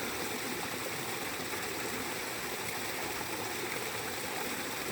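Small waterfall splashing steadily, an even rushing of falling water.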